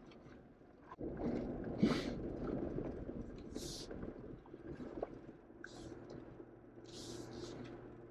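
A Jeep crawling over a rocky dirt trail: an uneven low rumble of tyres on rock and gravel, with several short hissing sounds spread through it.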